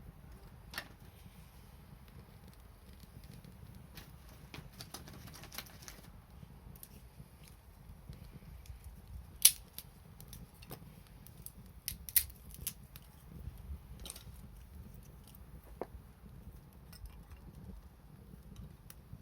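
Wood bonfire crackling, with irregular sharp pops and snaps; two pops stand out as loudest, about halfway through and a couple of seconds later.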